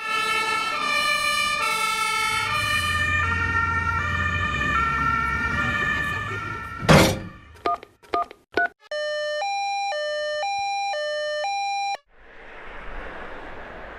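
Emergency-vehicle two-tone horn sounds: stepping horn tones over a low engine rumble for about six seconds, a loud sudden hit about seven seconds in, a few short beeps, then a clean two-tone 'tatütata' alternating about every two-thirds of a second for three seconds that cuts off sharply. A faint, even noise follows.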